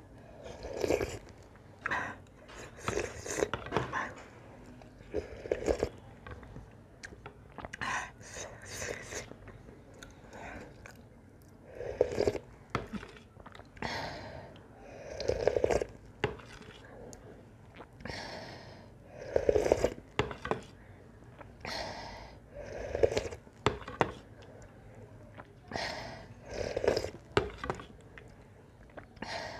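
Close-up eating sounds: buckwheat soup sipped and slurped from a spoon, roughly every three to four seconds, with chewing in between.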